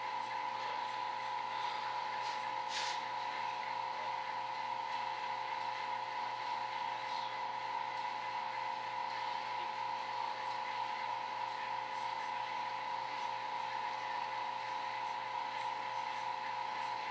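A steady hum at one high pitch, with a brief hiss about three seconds in.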